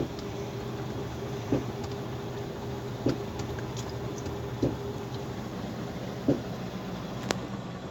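Steady engine and road drone inside a moving vehicle, with a dull knock about every second and a half, five times in all. The knock comes from a front wheel whose wheel nuts had worked loose. A single sharp click sounds near the end.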